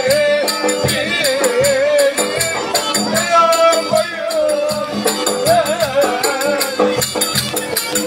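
Turkish folk dance music: a davul bass drum beating a quick, even rhythm with sharp stick strokes under a wavering, ornamented melody line.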